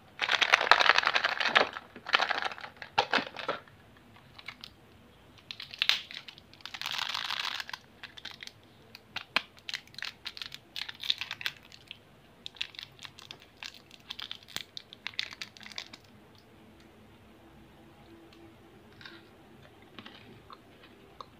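Plastic candy wrapper being crinkled and torn open by hand, in loud bursts of dense crackling that stop about three-quarters of the way through.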